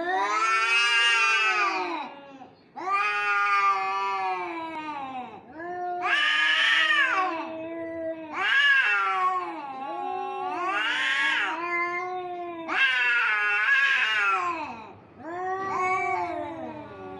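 Two cats caterwauling at each other in a face-off: about seven long, wavering yowls that rise and fall in pitch, one after another, the two voices at times overlapping. These are the aggressive yowls of a territorial standoff that can come before a fight.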